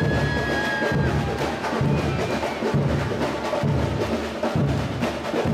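Samba percussion band playing a street-parade rhythm: deep surdo bass-drum beats a little under once a second under dense tapping and rattling of smaller drums and shakers.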